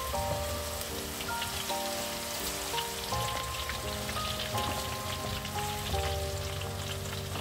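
Cassava chips frying in hot oil, sizzling and crackling, under background music with a simple melody of held notes.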